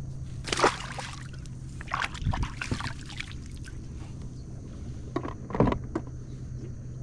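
Water splashing at the side of a kayak as a caught redfish is released over the side. There are a few short splashes: a loud one about half a second in, several around two to three seconds in, and another loud one near the end. A steady low hum runs underneath.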